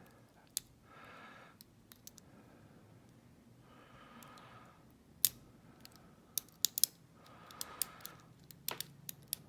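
Lock pick and tension wrench working the pins of a Yale pin-tumbler cylinder: scattered light metallic clicks and ticks, a few in quick succession, as the spool pins are worked toward setting.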